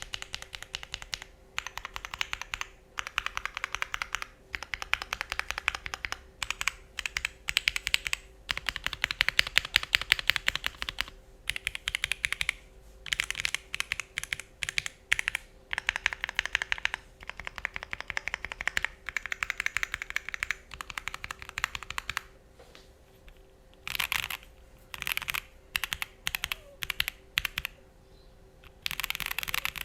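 TOFU65 2.0 mechanical keyboard with lubed and filmed Thic Thock Marshmallow linear switches, a PP plate, full Poron foam and GMK Minimal R2 keycaps, typed on in runs of fast keystrokes with short pauses between. The sound is not sharp, leaning creamy. There is a brief lull about two-thirds of the way through, then shorter bursts.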